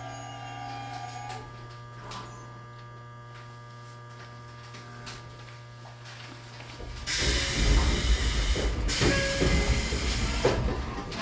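Interior of a stopped Tobu 20400 series electric train car: a steady electrical hum from the car's equipment. About seven seconds in, a loud rushing noise takes over for roughly four seconds, dipping briefly near the ninth second.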